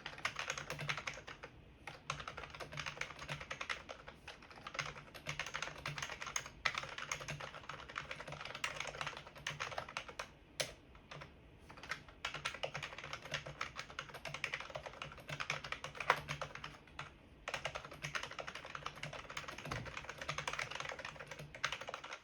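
Qsenn DT35 membrane keyboard being typed on quickly and continuously, a dense run of key clicks broken by a few short pauses, with one louder keystroke about two-thirds of the way through.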